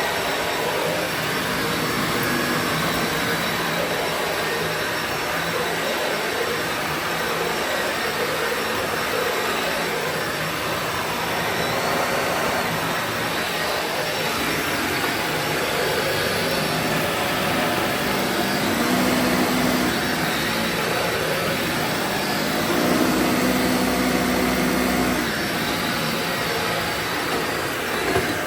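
Dyson Ball Animal 2 Total Clean upright vacuum running steadily on carpet, its motor and motorized cleaner head giving a continuous whir, with a lower hum coming in twice in the second half. The head runs without bogging down on this carpet.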